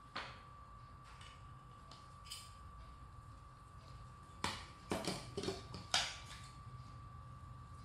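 Light clicks and knocks of 3D-printed plastic parts and a screwdriver being handled and set down on a desk, a few scattered ones and then a quick cluster about four and a half to six seconds in, the last the loudest.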